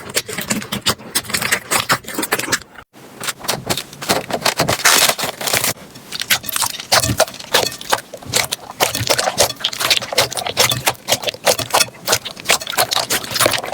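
Slime squeezed, pressed and poked by hand, giving dense, irregular crackling and popping clicks, with a short break about three seconds in.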